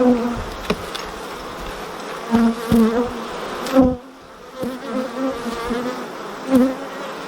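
Honeybees buzzing around an open hive, with individual bees flying close past the microphone several times in louder, pitched buzzes. A few sharp clicks also sound.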